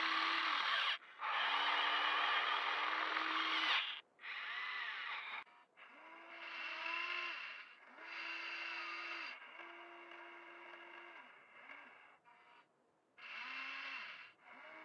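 Huina 580 RC excavator's electric arm motors whining in a string of about eight short runs, each rising in pitch as it starts and dropping as it stops, as the ripper tooth is worked through soil.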